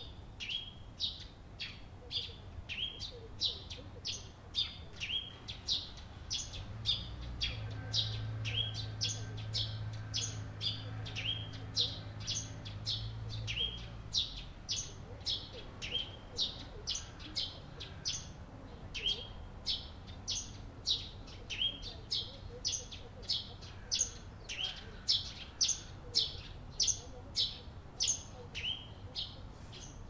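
Eurasian tree sparrows chirping while feeding: short, high, falling chirps, about two a second, from several birds. A low hum runs underneath for several seconds near the middle.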